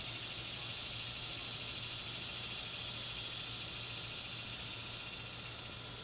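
A chorus of male cicadas calling together: a steady, high-pitched buzz that eases off slightly near the end.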